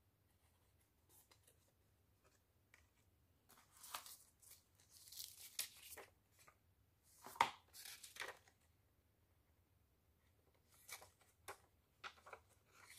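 Paper rustling and crinkling as a paper envelope is opened and the folded paper manual and leaflets inside are pulled out and unfolded: quiet, in short irregular spells, with the sharpest crackle about halfway through.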